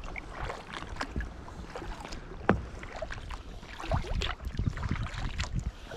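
Kayak paddle strokes dipping and splashing in choppy loch water, over a low uneven rumble. A sharp tap stands out about two and a half seconds in.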